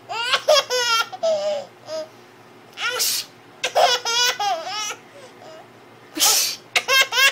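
Baby laughing in three bouts, each starting with a sharp breathy gasp and running into a quick string of high, pitched laugh syllables.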